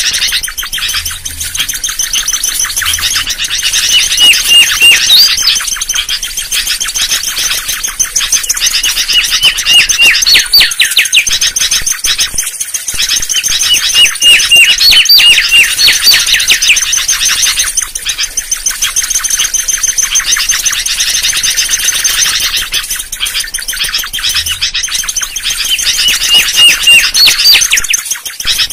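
Mangrove whistler song: phrases of quick repeated whistled notes and sharp rising and falling whistles, recurring every few seconds over a constant high twitter.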